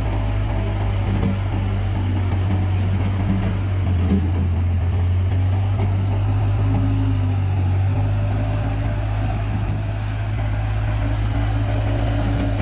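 Bobcat S130 skid steer loader's diesel engine running at a steady pitch, with small rises and dips in level.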